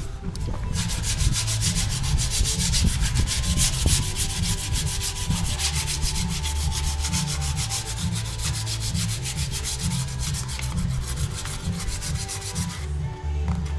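Quick, even back-and-forth rubbing strokes over a plastic bumper trim piece, stopping near the end: surface prep of the plastic before primer and paint.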